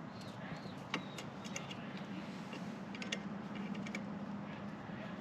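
Scattered small metallic clicks and ticks of pliers working a cotter pin, bending it straight, over a faint steady hum.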